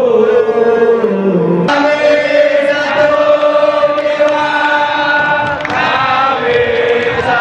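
Football supporters' crowd singing a chant together, many voices holding long sung notes; the pitch slides down and then breaks into a new, fuller phrase about two seconds in.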